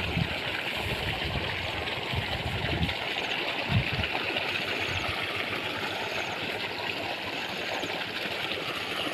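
Steady rush of water flowing through a rice-paddy channel. Low rumbling bumps on the microphone come in the first three seconds and once near four seconds.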